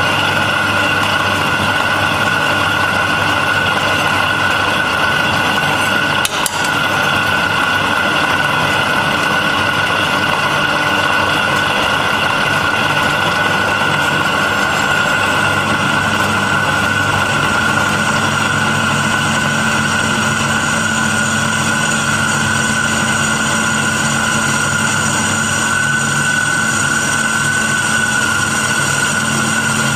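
Repaired drill press running steadily with a high whine from its motor and drive while the bit bores into a flat steel strip. A single short click about six seconds in.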